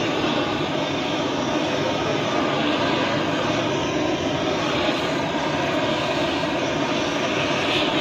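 LPG gas torch burning with a steady rushing noise as it heats and shrinks the red heat-shrink tubing of a high-voltage cable termination.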